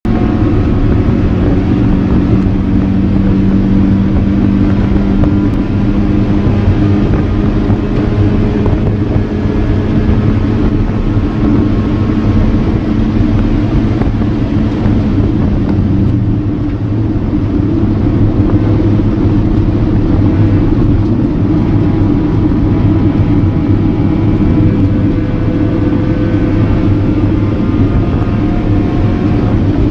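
1995 Mazda Miata's 1.8-litre four-cylinder engine running hard at track speed through an MBS aftermarket exhaust, heard inside the open cabin together with wind and road noise. The engine note holds steady, then changes about halfway through as the car slows from the straight into a corner.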